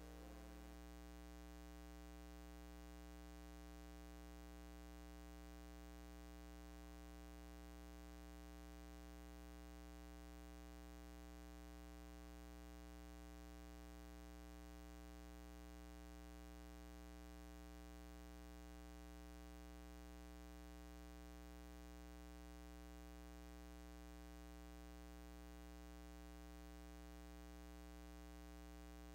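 Steady electrical mains hum with a stack of buzzing overtones, unchanging throughout, at near-silent level.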